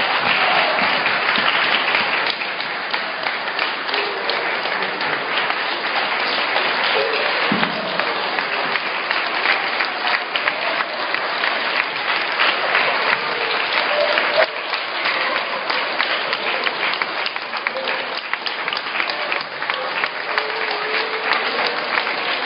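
A large crowd of schoolchildren applauding, steady and sustained, with scattered voices in it.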